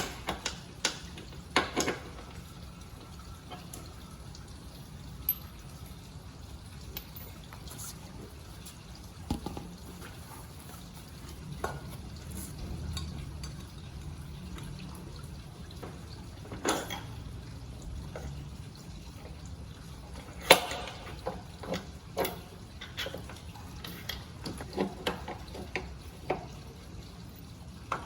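Scattered metallic clinks and knocks of hand tools and parts while a motorcycle wheel is being removed, with the loudest knock about twenty seconds in and a busier run of clinks after it.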